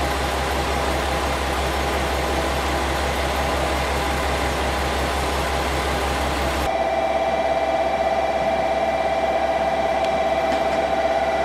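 Train running: a steady low hum with a fine regular pulse. About two-thirds of the way through it switches abruptly to a sound carrying a steady whine.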